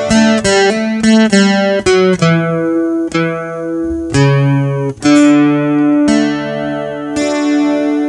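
Acoustic guitar playing the instrumental ending of a slow song: a run of picked single notes, then longer ringing notes.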